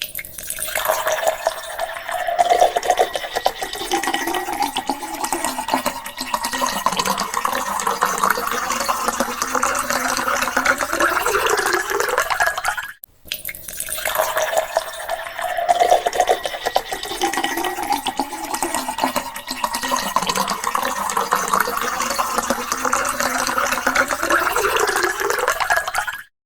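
Water poured into a drinking glass, a steady splashing pour. The same pour is heard twice, with a brief break about halfway through.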